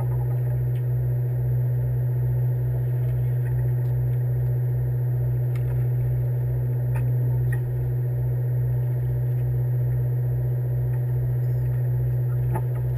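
Boat's engine running at idle: a steady low drone with a throb pulsing about two or three times a second, and a few faint clicks.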